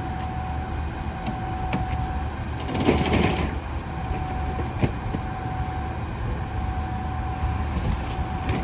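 McNeilus garbage truck running, a low rumble under a thin steady whine, with a short hiss-like rush about three seconds in and a couple of sharp knocks.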